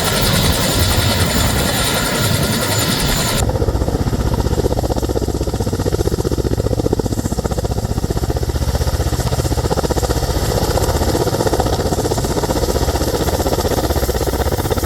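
Ka-52M attack helicopter in flight: turbine noise over a fast, even beat of the rotors. About three and a half seconds in the sound changes abruptly, the high hiss dropping away and leaving mostly the rapid rotor pulsing.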